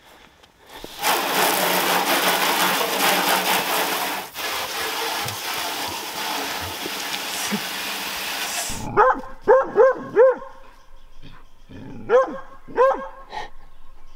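A loud steady rushing noise cuts off suddenly about nine seconds in, and then a dog barks in two quick runs, four short barks and then three more.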